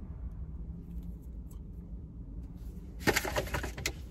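Crackling and clicking of plastic action-figure packaging being handled, a quick run of sharp crinkles about three seconds in, over a low steady hum.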